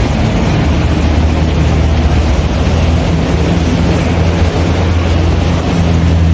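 Gondola lift station machinery running with a steady low mechanical hum and drone, as cabins move through the boarding area.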